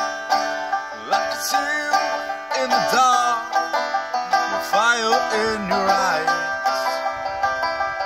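Banjo being picked, playing a tune, with some notes that bend in pitch.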